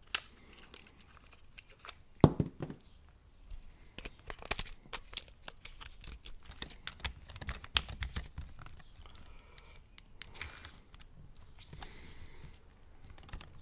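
Handling noises at a workbench: scattered sharp clicks and taps with light rustling, and one louder knock about two seconds in.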